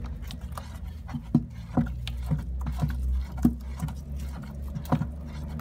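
Wooden stirring stick working a thick mix of sulfonic acid and texapon in a bowl, with irregular knocks and scrapes against the bowl.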